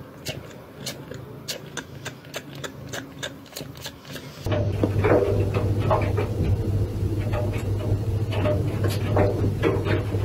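A cat chewing on a finger, heard as rapid faint clicks for the first four seconds or so. Then a front-loading washing machine's drum turning, a louder steady low motor hum with irregular knocks over it.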